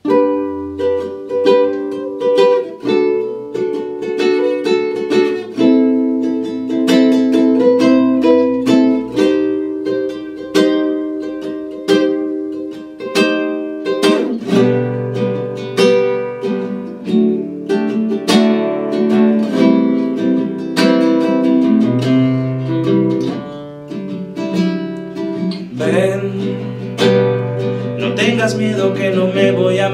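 Acoustic guitar picked note by note, playing the instrumental opening of a song. Deeper bass notes join about halfway through.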